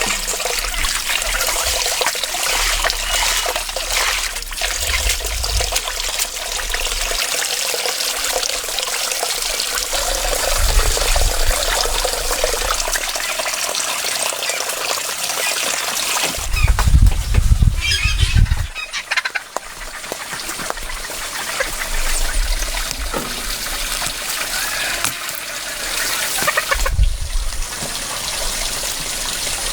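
Water trickling steadily, with a louder burst of low rumble about two-thirds of the way through and a shorter one near the end.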